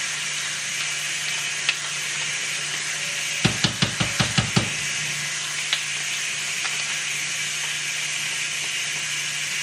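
Salmon frying in butter on a griddle, a steady sizzle, with a quick run of about seven sharp taps about three and a half seconds in.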